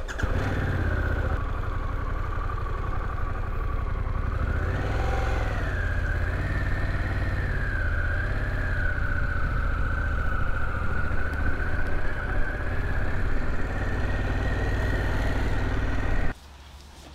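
Harley-Davidson Pan America Special's 1250 cc Revolution Max V-twin running at low road speed as the bike rides off, with a brief rise in pitch about five seconds in. The sound cuts off suddenly near the end.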